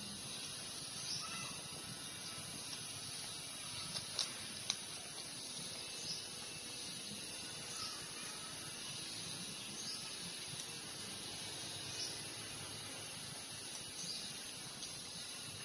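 A litter of puppies suckling at their mother: faint scattered clicks and small smacks, with a few short high squeaks, over a steady hiss.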